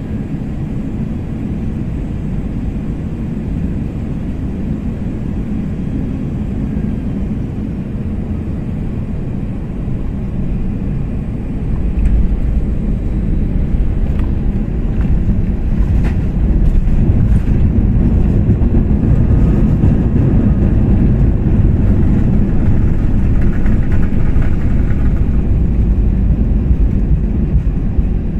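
Cabin noise of an Airbus A320-family jet landing: a steady engine and airflow rush, then about twelve seconds in a sudden, louder low rumble as the wheels touch down and the plane rolls out along the runway, with a few small rattles.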